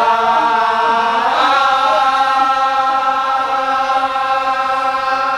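Chanting voices holding one long, steady note.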